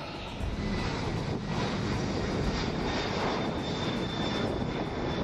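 Lockheed C-5 Galaxy's four turbofan engines at takeoff power: a steady rushing jet noise with a thin high whine, getting louder about half a second in.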